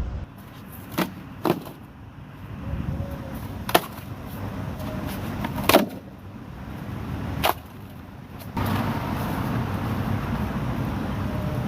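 Five sharp knocks or clicks, a second or two apart, over a low steady rumble, then a louder steady rushing noise takes over about two-thirds of the way in.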